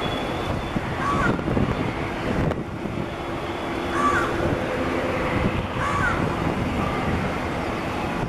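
Boeing 767-300 freighter's twin jet engines at takeoff thrust, a steady rumble as it accelerates away down the runway. A bird gives short calls three times over it.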